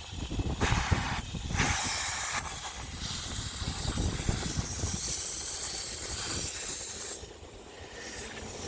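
Compressed air hissing into a car tyre through an inflator chuck as it is pumped up to about 35–40 psi after a puncture plug: a short burst about half a second in, then a long steady hiss that cuts off suddenly about seven seconds in.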